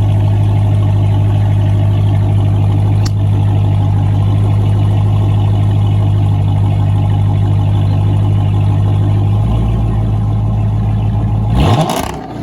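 Muscle-car engine idling loudly and steadily through its exhaust. Near the end the pitch briefly rises, then the sound drops away abruptly.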